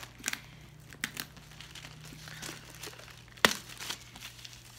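Packaging being pulled and torn open by hand, crinkling, with scattered small crackles and one sharp snap about three and a half seconds in.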